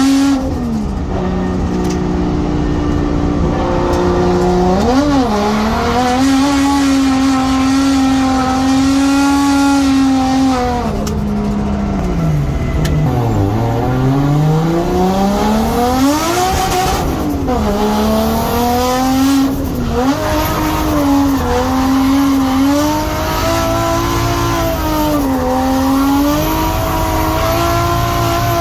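Nissan Skyline R32's turbocharged RB20DET straight-six running at high revs under drift. The revs are held steady for several seconds, drop sharply about halfway and climb again, then rise and fall repeatedly with the throttle. Tyres squeal alongside.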